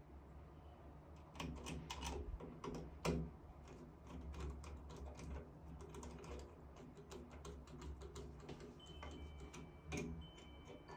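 Small sharp clicks and taps from tools and metal faucet parts being handled, a quick cluster in the first few seconds with the loudest tap about three seconds in, then scattered lighter clicks and one more distinct tap near the end.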